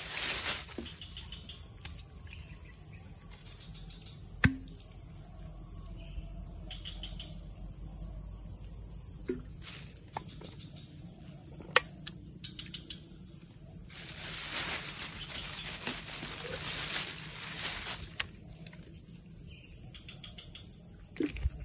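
Insects chirring in a steady high-pitched chorus, with a few spells of louder rustling and a couple of sharp clicks from handling a plastic bag and bottle.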